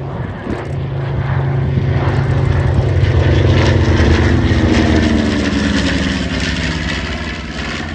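Piston-engined propeller warbird flying past: the engine drone builds, peaks about four seconds in, then fades with its pitch falling as the aircraft passes.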